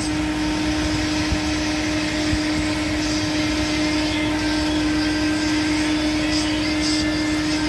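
Steady machine hum with one constant droning tone.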